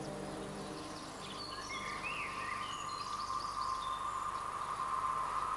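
Background music ending within the first second, then an outdoor ambience of small birds chirping in short, quick, sliding notes over a steady insect-like drone that grows louder from about a second in.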